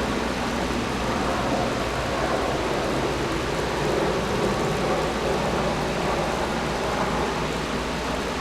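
Air conditioner running steadily: a constant rush of blown air over a low hum.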